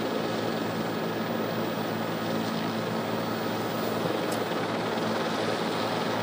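Steady drone of a news helicopter's engine and rotor on its open microphone: an even rushing noise over a low, steady hum.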